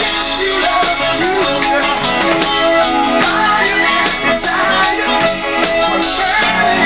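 A live funk band playing, with electric guitar and keyboards.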